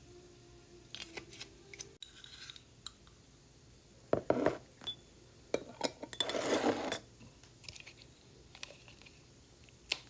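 Metal spoon clinking and scraping against a glass jar and a ceramic ramekin as chili crunch is scooped out: scattered clinks, a louder scrape a little after four seconds in and a longer scraping rush around six to seven seconds, then one sharp click near the end.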